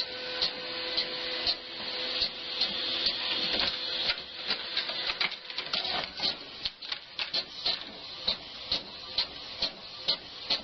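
Printer running: a steady mechanical whine with sharp clicks about twice a second, and a quicker run of clicks through the middle.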